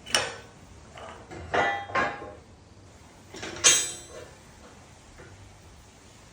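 Steel welding-table fixturing pieces clanking and clinking against each other as they are handled and set down. There are four knocks with a short metallic ring: one at the start, two close together about a second and a half in, and the loudest near the middle.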